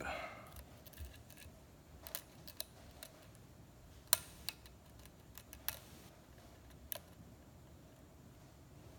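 Metal hook pick clicking and scraping against the pins inside a pin-tumbler lock cylinder while it is being picked: faint, irregular ticks, the sharpest about four seconds in.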